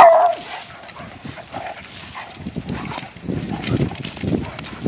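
Dogs at play: one loud, short bark right at the start, then quieter low growling noises while two Weimaraners wrestle.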